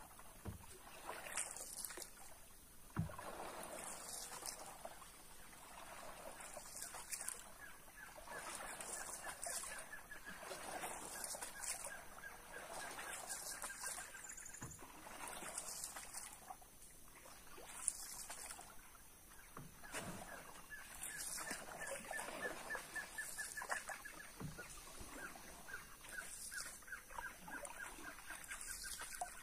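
Wooden paddle pulling through river water beside a wooden canoe in a steady rhythm, about one stroke every two seconds, with a few sharp knocks. Several times a bird gives a rapid, even trill of repeated notes lasting a few seconds.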